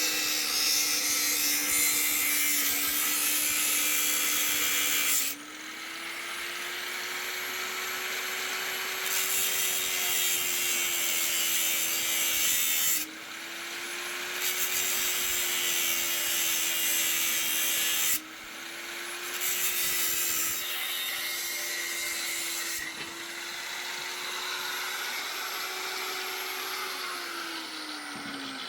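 Angle grinder working on metal: a steady motor whine under a harsh grinding hiss. The hiss drops away sharply several times as the disc comes off the work. Near the end the whine starts to fall as the motor winds down.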